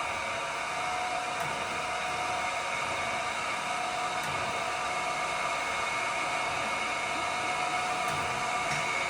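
Chevalier FSG-3A1224H hydraulic surface grinder running with spindle and hydraulic unit on: a steady whir carrying several steady tones, with a few faint ticks.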